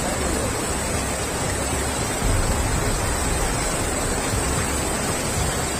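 Steady rush of muddy floodwater flowing down a village street, with wind buffeting the microphone.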